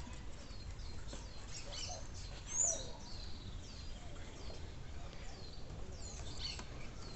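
Birds chirping in the background: a run of short, high, quickly falling chirps repeating throughout, with a louder call about two and a half seconds in, over a low steady rumble.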